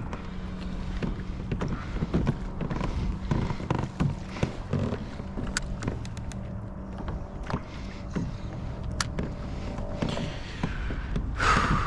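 Sounds of a fishing kayak on the water: lapping water with scattered small clicks and knocks on the hull and gear, over a faint steady low hum.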